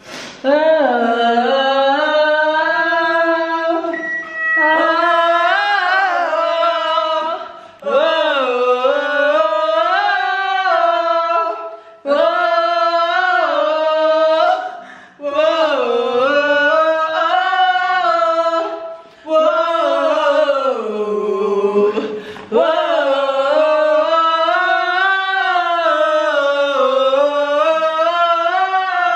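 A woman singing without accompaniment, in a string of sustained phrases of three to four seconds each with sliding pitch, broken by short breaths.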